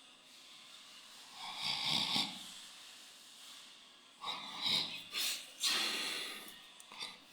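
A person snoring in their sleep. One long snore comes about two seconds in, then a run of several shorter, louder snores from about four seconds in until near the end.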